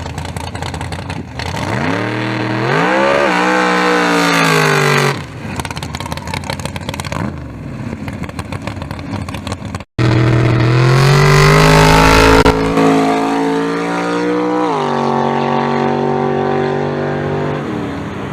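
Drag race car engines at full throttle making passes down the strip, loud, their pitch climbing as they accelerate. A first run rises and then drops off about five seconds in. After the sound cuts out for a moment about ten seconds in, a second run climbs again, then falls back to a steadier, lower drone.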